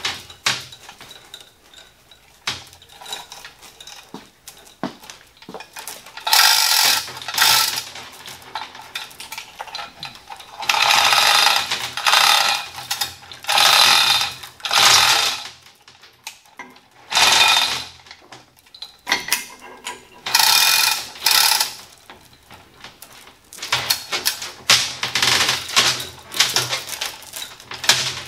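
Manual chain hoist's steel hand chain rattling and clattering through the hoist as it is hauled hand over hand, in about six bursts of a second or two each with quieter pauses between.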